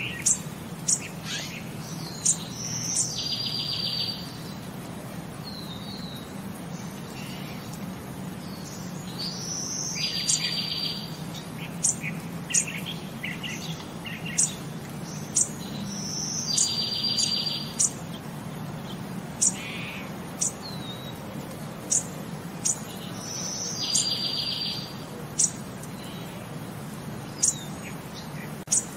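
Birdsong: sharp high chirps and a short buzzy trill, the same phrase repeating about every seven seconds over a low steady hum.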